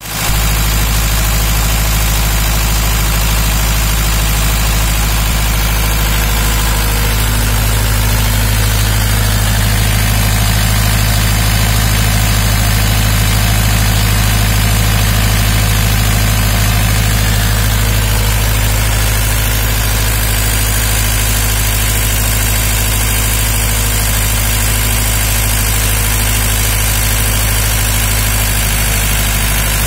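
Fawde diesel engine of a 20 kVA generator set running steadily at constant speed, a deep, even hum.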